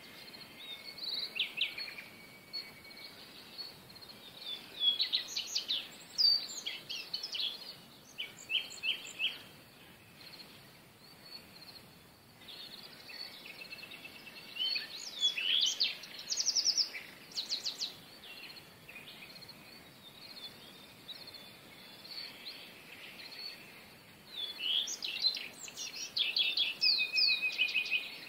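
Small birds chirping and twittering in three spells of quick, high calls, with quieter gaps of faint outdoor hiss between them.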